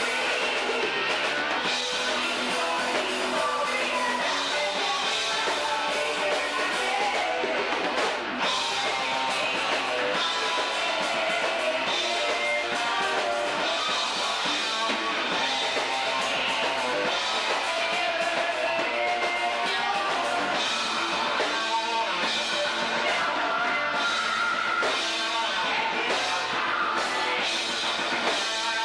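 Rock band playing live: electric guitar and drum kit, with a singer singing into a microphone over them.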